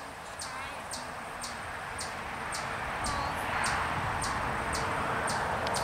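Outdoor ambience: an insect chirping in short high pulses about twice a second, over a steady rushing background noise that grows a little louder about three seconds in.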